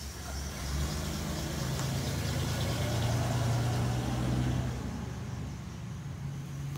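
Car engine running steadily, its low hum growing louder about a second in and easing off again near five seconds.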